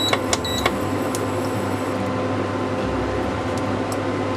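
Induction cooktop humming steadily, its cooling fan and coil whine making a constant drone with a few fixed tones. There are two short high beeps right at the start.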